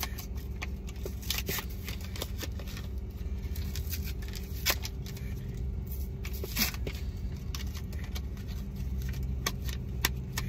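Steady low hum of a car, heard from inside the cabin, with scattered small clicks and taps at irregular moments.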